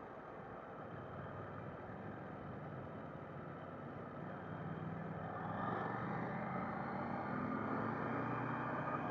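KTM 890 Duke GP's parallel-twin engine heard from the rider's seat under a steady rush of wind. It runs evenly through a bend, then about five seconds in the engine note rises and grows louder as the bike accelerates out of the turn.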